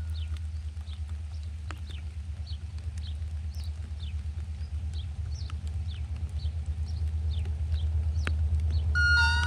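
Diesel locomotive approaching along the track: a low engine rumble growing steadily louder, with faint short falling high chirps about twice a second. The locomotive's multi-tone horn sounds briefly at the very start and again near the end.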